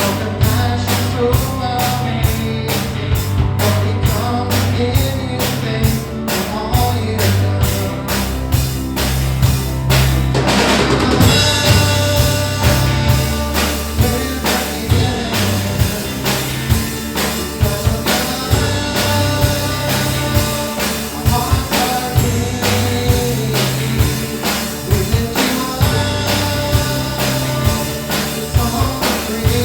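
Live worship band playing a song with a full drum kit, bass and voices singing, with a steady beat and a cymbal swell about ten seconds in.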